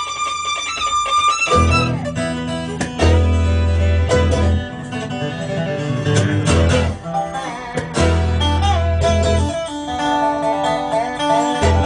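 Bluegrass band playing an instrumental break, with plucked acoustic guitar and banjo.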